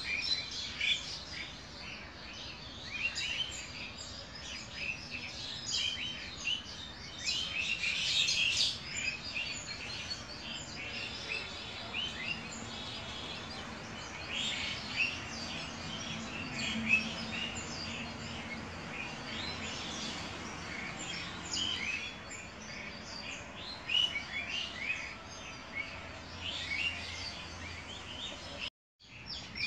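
Many small birds chirping and twittering, with short, quick calls overlapping one another. The sound cuts out for a moment near the end.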